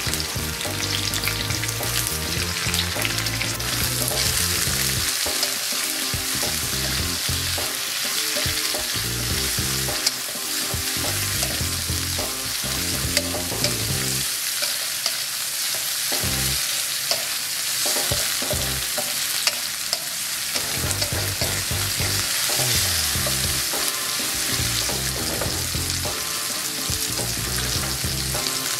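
Green bell pepper and red chili strips sizzling in hot oil in a metal wok, stirred and turned with a wooden spatula that scrapes the pan. A steady frying hiss throughout, with a few sharp clicks of the spatula against the wok.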